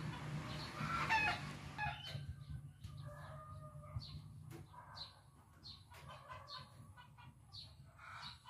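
Chickens clucking and calling at a low level, with one louder call about a second in and short, repeated high calls after it.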